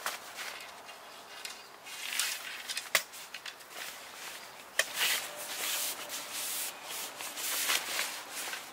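Nylon fabric of a folding camping cot and its carry bag rustling and rubbing in long strokes as the bag is pulled off and the cot bed is shaken out, with a couple of sharp clicks from the cot's metal frame.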